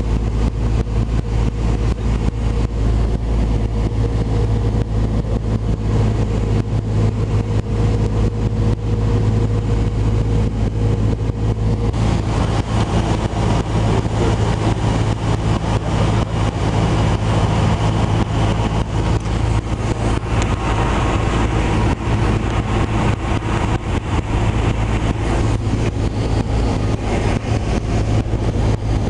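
Cessna 172 Skyhawk's four-cylinder piston engine and propeller droning steadily, heard inside the cabin with wind noise. About twelve seconds in the sound changes abruptly, with more hiss on top.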